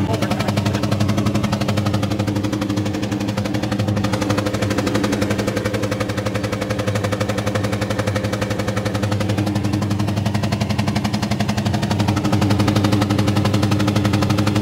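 Car engine held on its rev limiter by a brick on the gas pedal, running in a rapid, steady stutter as the limiter cuts in and out, with its coolant drained.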